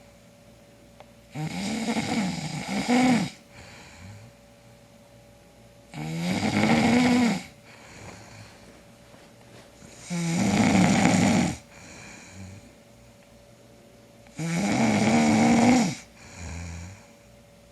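A man snoring in his sleep: four snores about four seconds apart, each lasting one to two seconds, with quieter breaths between.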